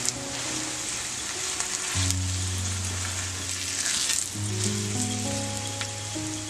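Oil sizzling steadily under flatbreads frying in a wide iron pan, the hiss swelling briefly as one is flipped about four seconds in. Low held notes of background music run underneath.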